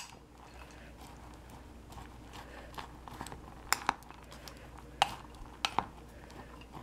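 A spoon stirring flour, raisins and almonds in a glass bowl, scraping through the dry mix and clinking sharply against the glass a few times: once at the start, twice just before four seconds in, and again around five to six seconds.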